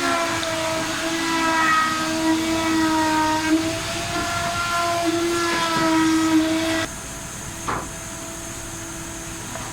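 A machine running with a steady whine whose pitch wavers slightly. About seven seconds in, the sound abruptly becomes quieter and duller.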